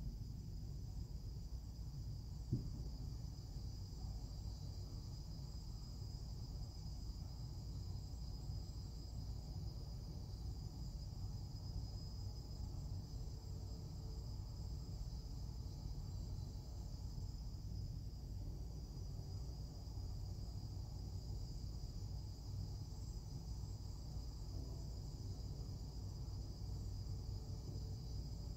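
Steady background noise: a low rumble with a thin, steady high-pitched whine over it. One sharp click comes about two and a half seconds in.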